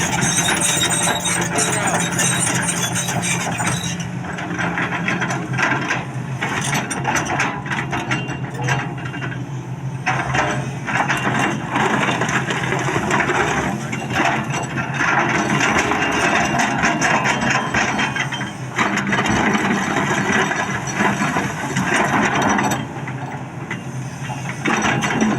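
Excavator at work: its diesel engine running steadily under a dense, irregular clanking and grinding of metal.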